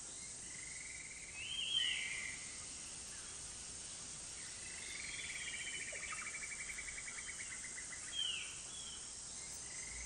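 Tropical rainforest ambience: a steady high insect drone with bird calls over it, a short whistled call about one and a half seconds in, a long rapid trill from about five to eight seconds, and another short call near the end.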